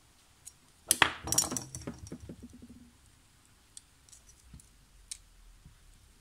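Metal clinks and clatter of slip-joint pliers handled against a small metal part, in a quick flurry about a second in, then a few faint scattered clicks.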